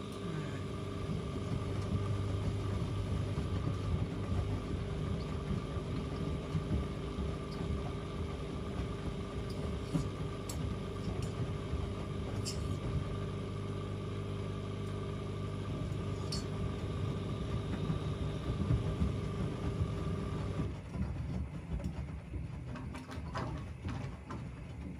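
Washing machines running with a steady mechanical hum that cuts off suddenly about twenty-one seconds in, leaving a quieter rumble with scattered light clicks.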